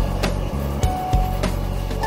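Background music: a gentle melody of struck, ringing notes.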